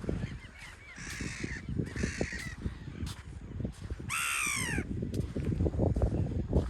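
Birds calling on the shore: two harsh calls about a second apart, then a louder call about four seconds in that falls in pitch. A low rumble of wind runs under them.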